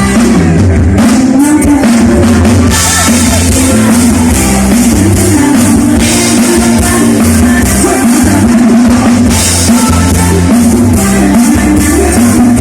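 Loud live band music: a drum kit with a pounding kick drum and bass under a woman singing the melody.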